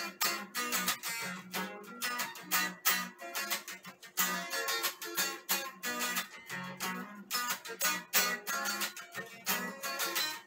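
Electric guitar played through a Boss ME-80 multi-effects unit and a small Frahm amplifier, strumming chords in a steady rhythm.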